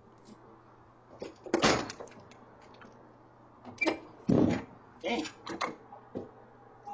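A run of sharp knocks and rattles as a person handles the front door right beside a doorbell camera. The heaviest bang comes about four and a half seconds in.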